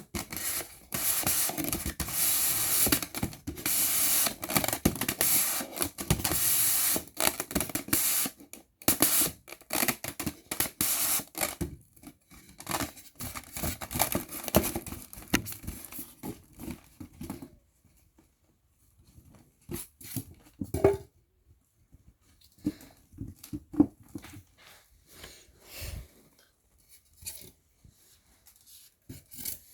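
Round cake box and its plastic lid handled close to the microphone: dense scratching and rubbing of the plastic for about the first twelve seconds, then sparser light taps and clicks with short quiet gaps.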